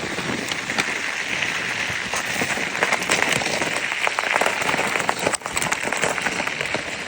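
Studded fatbike tyres rolling over ice: a steady, dense crackle full of sharp clicks, with a brief dip about five seconds in.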